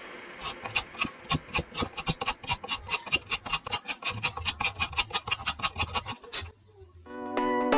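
Quick, even strokes of a hand tool rasping or scraping across wood, about four a second, stopping about six and a half seconds in. After a short pause, plucked-string music starts near the end.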